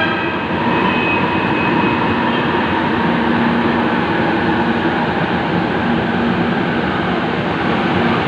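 MRT-3 metro train at the station platform, a steady rumble with a brief whine about a second in.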